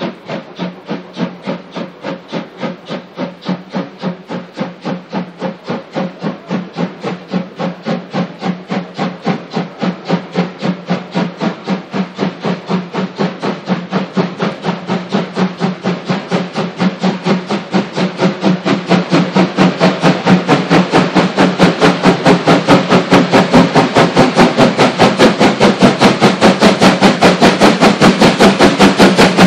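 Two-cylinder German steam locomotive working hard, its exhaust beats coming in an even, quick rhythm that grows steadily louder throughout.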